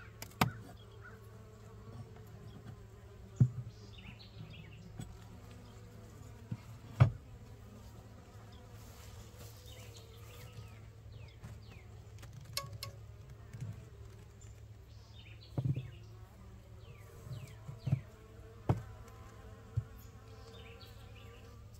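Honeybees buzzing steadily around an open Layens hive, a low hum with several tones in it. Sharp wooden clicks and knocks come now and then, the loudest about seven seconds in, as a metal hive tool levers frames loose and a comb frame is lifted out.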